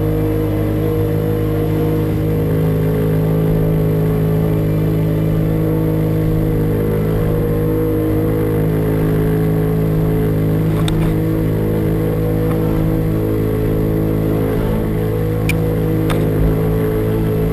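A RIB's engine running steadily at speed, a constant drone that holds its pitch, over the rush of the wake. A few faint clicks come in the second half.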